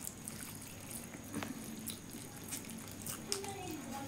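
Eating by hand: wet chewing and lip smacks with fingers mixing rice and curry on steel plates, heard as many short, sharp clicks and smacks.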